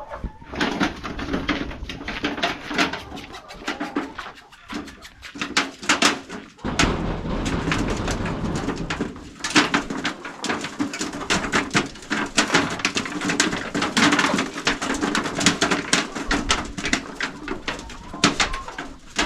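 A flock of chickens feeding: many irregular sharp pecking clicks over a steady low murmur of soft cooing calls.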